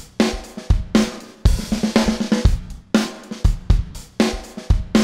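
Background music with a drum-kit beat of bass drum, snare and cymbals, about two strikes a second.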